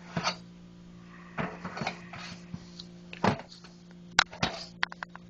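Knocks, clatter and small clicks of computer parts being shifted and handled in a desktop computer case, with the loudest knock a little past the middle, over a steady low hum.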